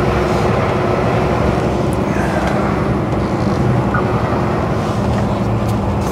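Mercedes-Benz Actros lorry driving on a wet road, heard from inside the cab: a steady drone of diesel engine and tyre noise.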